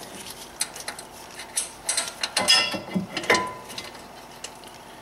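Metal clinks and knocks as a front brake caliper bracket is worked into position over the rotor to line up its mounting bolts. Several sharp knocks come over about three seconds, one of them ringing briefly, then it goes quieter.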